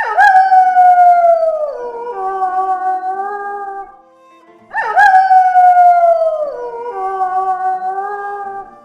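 Wolf howling twice, about five seconds apart. Each howl swoops up sharply, slides slowly down in pitch, then settles into steady held notes layered over one another.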